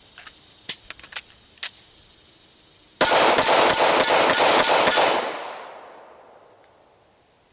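A few light metallic clicks, then a sudden loud stretch of rapid gunfire mixed with metallic clanging. It lasts about two seconds and then fades away.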